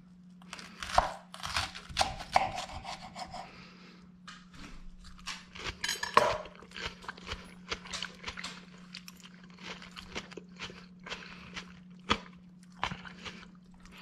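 Knife and fork cutting through a wedge of crisp iceberg lettuce on a wooden board: irregular crunching and crackling of the lettuce, with light clicks and scrapes of the cutlery.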